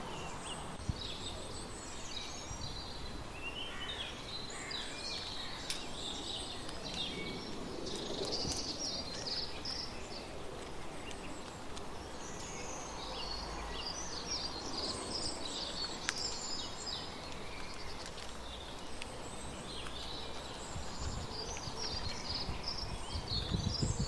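Several small songbirds chirping and singing in overlapping bursts over a steady outdoor background hiss.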